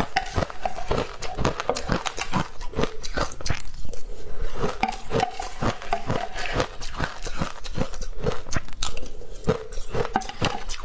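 Frozen matcha-powdered ice crunching as a metal spoon scrapes and scoops it in a glass bowl and it is chewed: a rapid, irregular run of crisp crunches and clicks, several a second.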